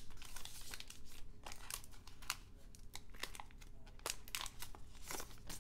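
A trading card pack's crimped wrapper being torn open and crinkled by hand, with many irregular small crackles, as the stack of cards is worked out of it.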